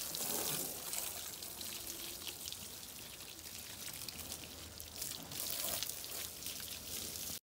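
Water from a hose spraying onto the front of a small white kei truck and splashing onto the wet, soapy ground as it is washed; the spray gets a little louder about five seconds in, and the sound cuts off suddenly near the end.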